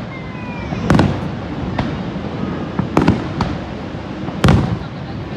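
Fireworks show: loud booms of aerial shells bursting about a second in, about three seconds in and, loudest, about four and a half seconds in, with smaller cracks between them over a steady background rush.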